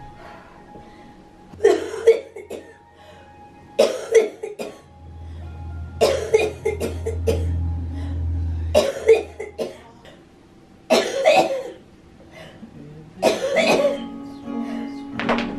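A woman coughing in a series of harsh single coughs, about one every two seconds, typical of a cystic fibrosis cough. A soft acoustic guitar plays underneath.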